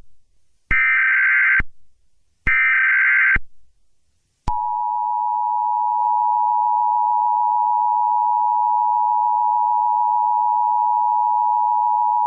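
Emergency Alert System tones: two roughly one-second bursts of SAME header data tones in the first few seconds, then about four and a half seconds in the steady two-tone EAS attention signal (853 and 960 Hz) starts and holds.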